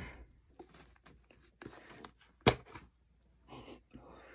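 A plastic food-storage container being handled and its snap-on lid pried off, with scattered light taps and rustles and one sharp plastic click about halfway through.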